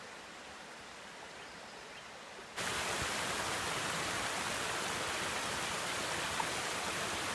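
Rushing river water, a steady even hiss; about two and a half seconds in it jumps suddenly louder and carries on steady.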